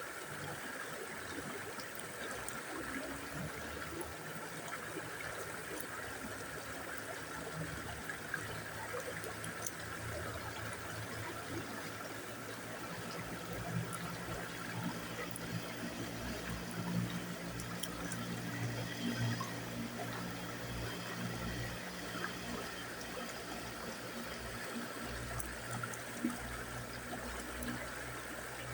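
River water flowing steadily over stones, an even rushing trickle, with a low rumble joining in from about halfway through.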